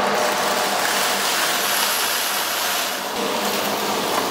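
Breeze Evo upright vacuum cleaner running steadily, a rush of air over a low hum, as it sucks spilled salt off a tiled floor.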